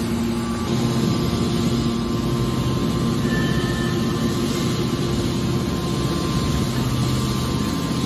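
Hydraulic scrap metal baler running, its pump and motor giving a steady low hum while the lid's hydraulic cylinders move it.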